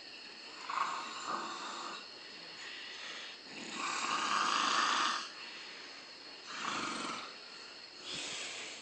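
Snoring: four snores a couple of seconds apart, the longest and loudest about four seconds in, lasting over a second.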